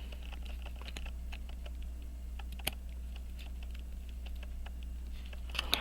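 Faint, irregular small clicks and taps of watchmaker's tools on the works of a pocket watch being assembled, one slightly sharper click near the middle, over a steady low hum.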